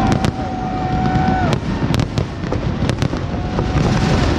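Fireworks display: a continuous low rumble of bursts with many sharp cracks and pops, and a steady whistle-like tone over the first second and a half.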